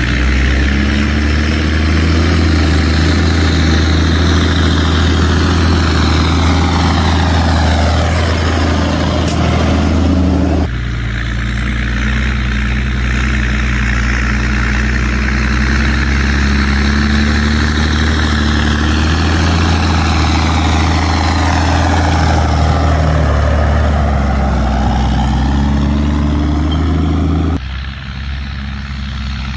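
Fendt 916 tractor's diesel engine running with a steady low drone under a higher whine that slides down and back up in pitch. Sudden cuts about ten seconds in and near the end break the sound into three stretches.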